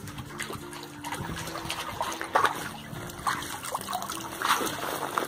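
A small dog wading in a shallow above-ground pool, the water splashing and trickling unevenly around its legs as it steps about.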